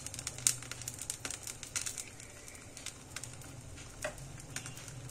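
Brinjal dosa batter sizzling and crackling on a hot dosa tawa, with scattered light clicks.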